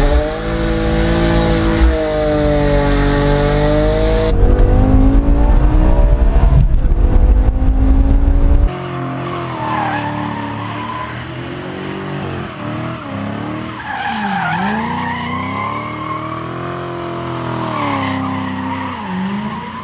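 A car engine revving up and down with heavy wind buffeting on the microphone. About nine seconds in this gives way to a car doing a burnout, its engine revving hard and dipping while the tyres squeal.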